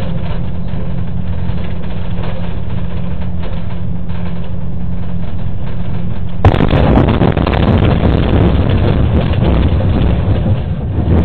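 A bus's engine and road noise heard through its dash cam, running with a steady low hum. About six and a half seconds in there is a sudden knock, and the noise turns much louder and rougher, a rattling rumble that runs on to the end.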